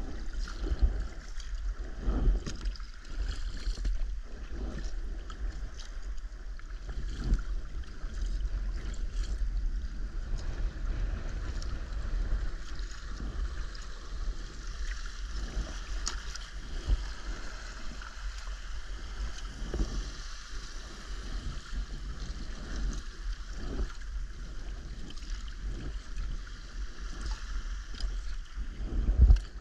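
Sea kayak moving through choppy water: water splashing and gurgling against the hull in irregular bursts, over a low rumble of wind on the microphone.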